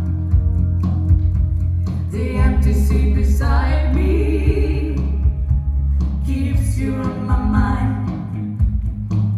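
Live band music: singing over guitar and a steady bass line.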